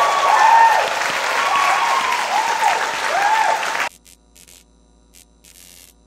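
Concert audience applauding, with repeated rising-and-falling whoops over the clapping. The applause cuts off abruptly about four seconds in, leaving only faint, sparse crackles.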